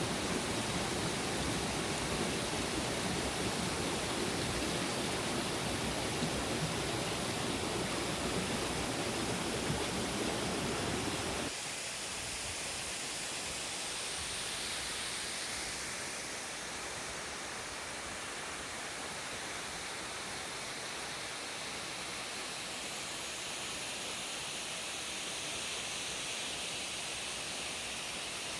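Steady rushing noise of a tall free-falling waterfall. About eleven seconds in it cuts abruptly to a thinner, slightly quieter hiss with less low rumble.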